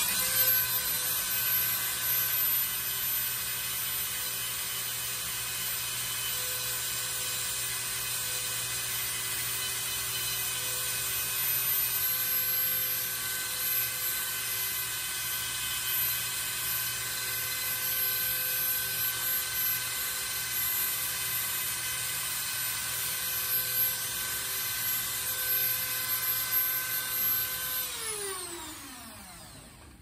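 Rotary tool on a flexible shaft running at a steady high whine as its bit carves an indent into a Micarta knife scale. It comes up to speed at the very start and winds down, falling in pitch, over the last two seconds.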